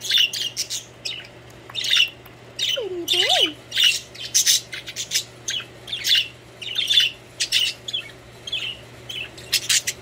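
Pet budgerigars chattering, with quick squawks and chirps in short bursts one after another.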